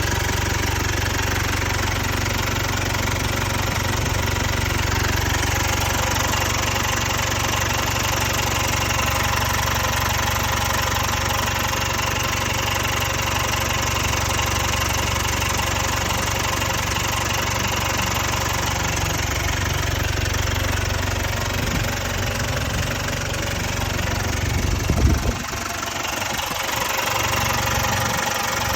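Jaguar Ingenium 2.0-litre four-cylinder diesel engine idling steadily, with a rattling noise the owner puts down to stretched timing chains. About 25 seconds in there is a brief louder moment.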